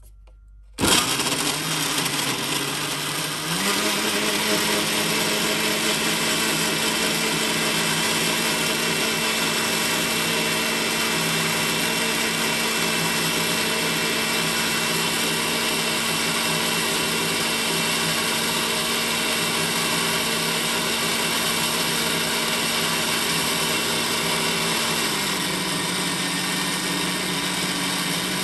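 Countertop blender running at full speed, blending strawberries, milk and yogurt into a smooth drink. It starts suddenly about a second in, its motor pitch steps up a few seconds later and then holds steady, dropping a little near the end.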